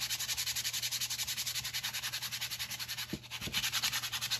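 Sandpaper rubbed by hand over the rusty steel shank of a receiver hitch, in fast back-and-forth strokes of about ten a second, scouring off surface rust.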